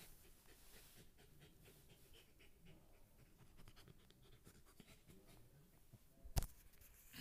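Faint rustling and scratching of a hand rubbing a shaggy dog's fur close to the phone, with a single sharp knock about six seconds in.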